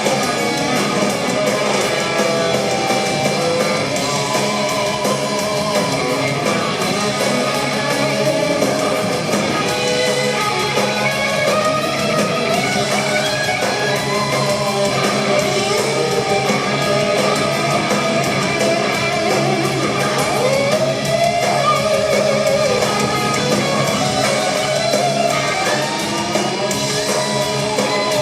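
Hard rock band playing live and loud, with electric guitar carrying a lead line of bending notes over the band and no singing.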